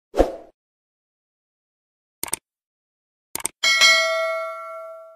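Subscribe-button animation sound effects: a short pop, a mouse click about two seconds in, and a quick double click. Then a bright notification-bell ding rings out and fades over about a second and a half.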